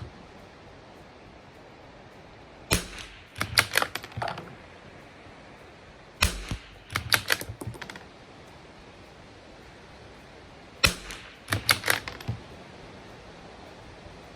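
Three quiet cracks of a .22 LR bolt-action Tikka rifle with a heavy 24-inch IBI bull barrel firing subsonic standard-velocity rounds, about four seconds apart. After each shot comes a quick run of metallic clicks as the bolt is worked to eject and chamber the next round.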